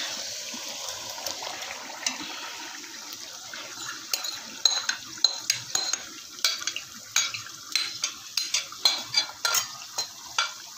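Hot oil and cooked-down tomatoes sizzling in an aluminium karahi as yogurt-marinated chicken is spooned in. From about four seconds in, a quick run of clinks and scrapes as a metal spoon scrapes the marinade out of a glass bowl and knocks against the pan.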